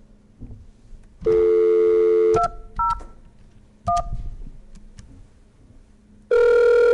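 A telephone call being placed: a steady dial tone for about a second, cut off by three short keypad touch-tone beeps, then a pause before a steady ringing tone begins near the end as the line rings at the far end.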